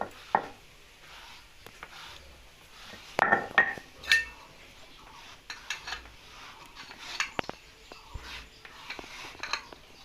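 A spoon scraping and clinking against a container as freshly ground cashew paste is scooped out: scattered clinks and scrapes, busiest about three to four seconds in.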